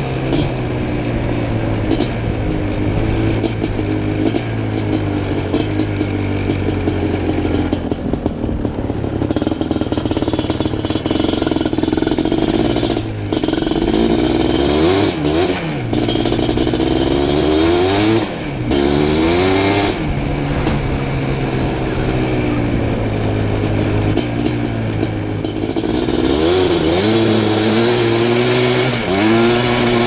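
Suzuki LT500R Quadzilla's 500cc two-stroke engine with FMF exhaust, ridden hard: a steady high-revving run, its pitch falling and climbing again several times through the middle, with a couple of brief throttle lifts.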